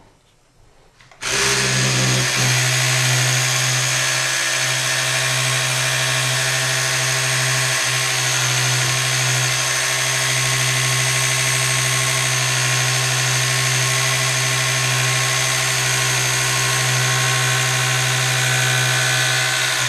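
Small handheld vibrating tool switched on about a second in and buzzing steadily against a plastic primer flip tray in a homemade fixture, its vibration shaking the primers into the primer pickup tube; it cuts off at the very end.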